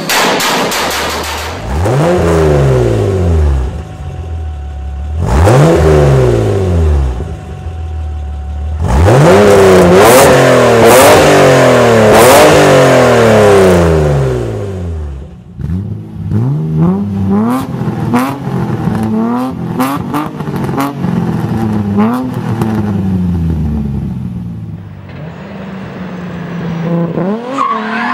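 BMW E30 engines revved hard through modified exhausts: a series of free revs, each rising and falling in pitch, with sharp pops and crackles on the overrun. About halfway through come quicker throttle blips, and near the end an engine runs at steady high revs under load.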